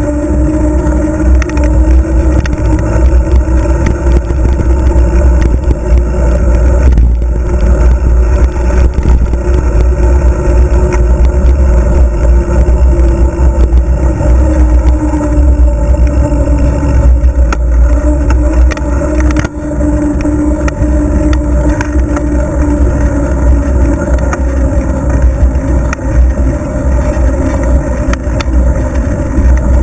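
Wind buffeting the microphone of a camera mounted on a moving road bicycle, a loud steady rumble, with tyre noise and a steady hum from the bike rolling on pavement.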